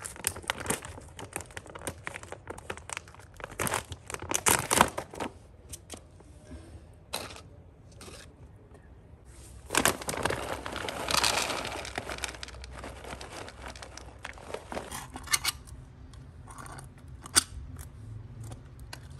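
A food packet crinkling and rustling in the hands as it is handled and torn open. There are scattered clicks and crackles, and one longer, louder rustle about ten seconds in.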